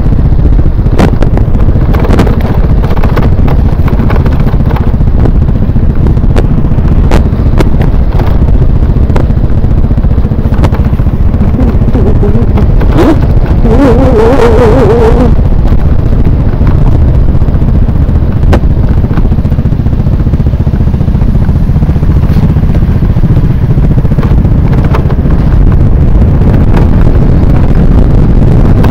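Motor scooter under way, its engine running steadily under a loud, constant rumble of wind on the microphone; about halfway through, a brief wavering higher pitch.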